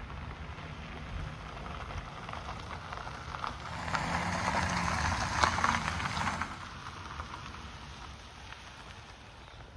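A Mazda3's tyres crunching over gravel as the car drives slowly past, the crackle of stones loudest for a couple of seconds in the middle as it comes closest, over a low engine hum.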